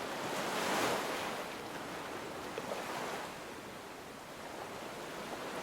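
Ocean surf: a soft, even wash of waves that swells about a second in, eases off through the middle and builds again near the end.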